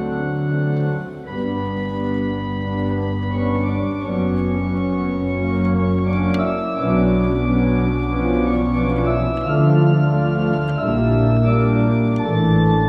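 Organ playing the closing music of a church service: sustained chords that move to a new chord every second or two over held bass notes.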